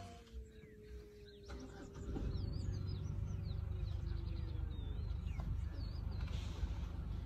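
Birds chirping in short whistled calls over a low, steady vehicle-engine rumble that gets louder about two seconds in.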